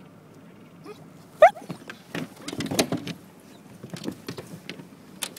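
A dog shifting about against the rubber tube of an inflatable boat: a short rising squeak, then a run of scuffs and knocks, with scattered clicks and one sharp click near the end.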